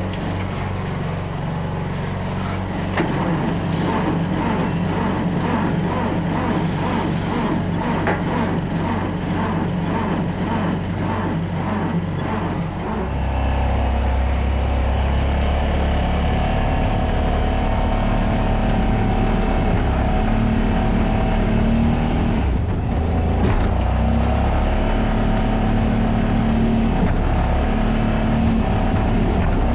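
A vehicle engine running steadily, getting louder and deeper about thirteen seconds in.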